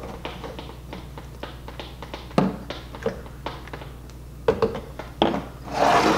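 Glass tumblers of water being slid, lifted and set down on a tabletop as they are shuffled: scattered light clinks and knocks, the sharpest about two and a half seconds in and twice more near the end.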